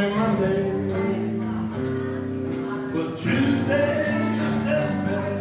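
Live band playing bluesy music: a singer's voice over guitars.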